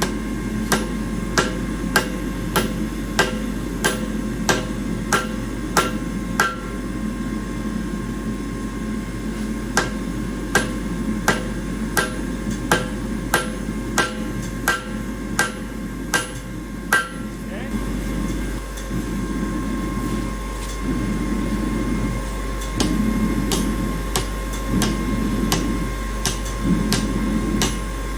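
Hammer blows on a steel bar being straightened, with metallic ringing, one strike about every half second or so. There are two runs of strikes with a pause of a few seconds between them, and the strikes stop about 17 seconds in.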